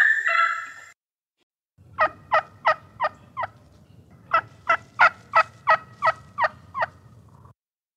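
Wild turkey yelping: a run of five sharp yelps, each note dropping in pitch, then after a short pause a longer run of eight.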